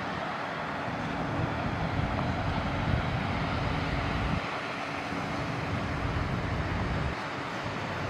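Outdoor background noise: a steady hiss with a low rumble underneath that comes and goes, dropping away sharply about halfway through and again near the end.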